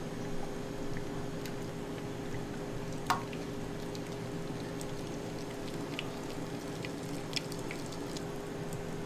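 Beaten eggs dripping and streaming from a mesh sieve into a large aluminium pot, over a steady background hum. A sharp click about three seconds in.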